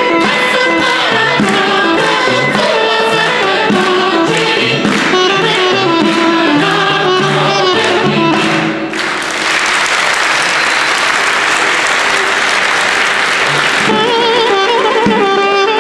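A women's choir sings with instrumental accompaniment and a steady plucked beat, ending about nine seconds in. Applause follows for about five seconds, and then a wind instrument starts a new melody near the end.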